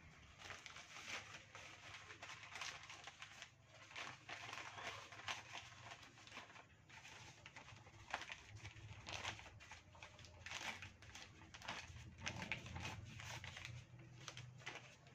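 Thin black plastic polybag crinkling and rustling in the hands as it is opened out and handled, in a long run of short, irregular crackles.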